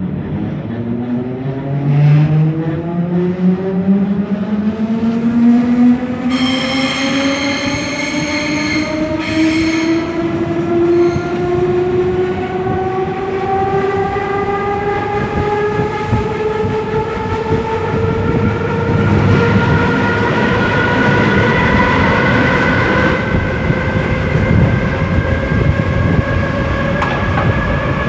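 Berlin S-Bahn class 485 electric train pulling away, its traction motors whining and rising steadily in pitch as it gathers speed, over rumbling wheel and rail noise. About six seconds in, a shrill high-pitched tone sounds for roughly three seconds, with a short break near its end.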